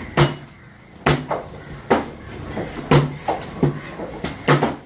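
Heavy knife blows chopping on a wooden cutting board: about eight sharp knocks with a dull thud, irregularly spaced at roughly one or two a second.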